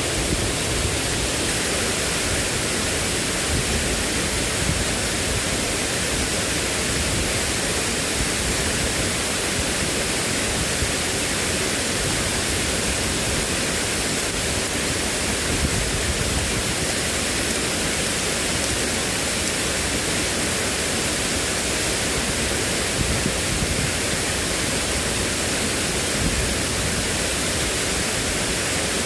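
Steady, dense rushing of water, an unbroken roar of noise that does not change.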